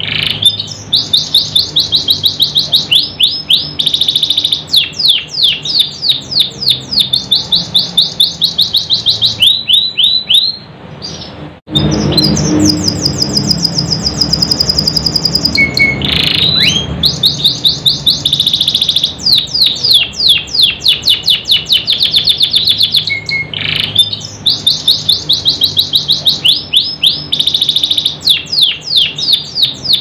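Domestic canary singing: long runs of fast rolling trills of rapidly repeated notes. A short break comes just before the middle, followed by a steady high whistle held for a few seconds, and then the trills resume.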